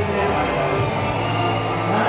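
Music built on steady held tones, with a low sustained tone in the second half.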